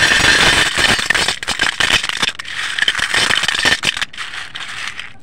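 Dry broken clay shards clattering and rattling onto a stainless steel plate as they are dropped and pressed together by hand. The clatter is dense and loud for about four seconds, then thins to a few scattered crackles near the end.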